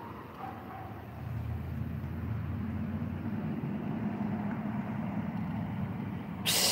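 A motor engine running with a steady low drone that grows louder about a second in and then holds. A brief rustle hits the microphone near the end.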